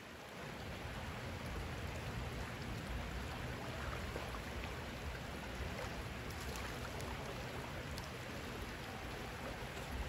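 Shallow creek water running fast over stones: a steady rush of flowing water.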